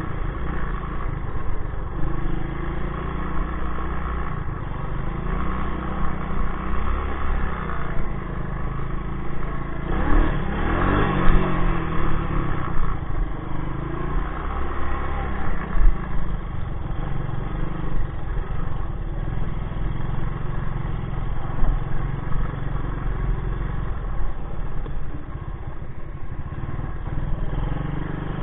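1984 Honda ATC 200S three-wheeler's air-cooled four-stroke single-cylinder engine running under way, the revs rising and falling with the throttle, with a burst of higher revs about ten seconds in.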